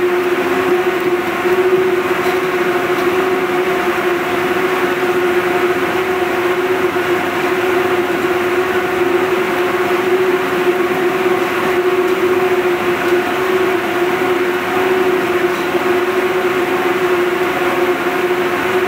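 Spinning mill machinery running: a loud, steady drone with a constant hum held under it.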